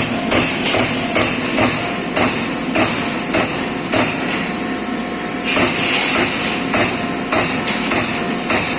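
CNC punch press punching sheet metal: sharp, evenly spaced strokes about two to three a second over a steady machine hum.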